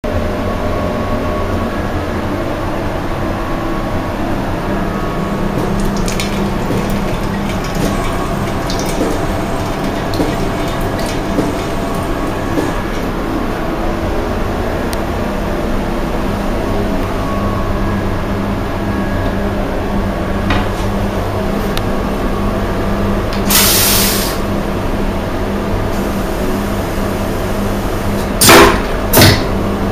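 Steady low hum and rumble of the train carriage heard inside its toilet cubicle. A short hiss comes about 23 seconds in. Near the end, two loud bangs come as the stainless-steel vacuum toilet starts its flush.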